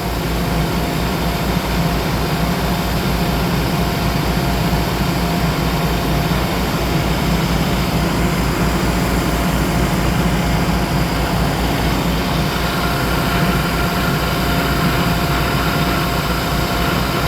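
Heavy diesel paving machinery running steadily, a constant engine drone with a fast low throb; a higher whine joins about two-thirds of the way through.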